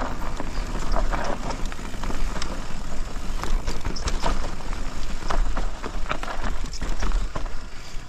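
Electric mountain bike riding fast over a dirt and dry-leaf forest singletrack: steady tyre noise with frequent sharp knocks and rattles from the bike over the rough ground, under a heavy low wind rumble on the camera's microphone.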